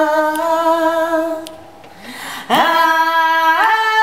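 A woman singing unaccompanied, holding one long note that fades out about a second and a half in. After a short gap she starts a new long note that steps up in pitch near the end.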